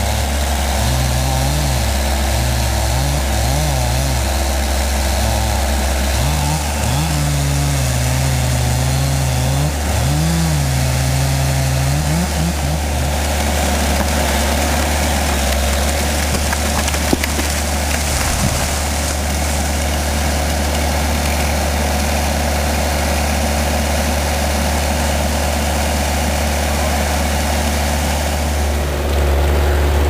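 Backhoe loader engine running under load as its boom pushes against a tall tree. The pitch rises and falls repeatedly over the first dozen or so seconds, then holds steadier.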